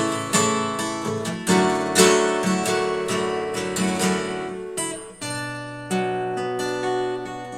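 Acoustic guitar strummed in an instrumental break between sung verses, chords struck about twice a second, with a chord change about five seconds in.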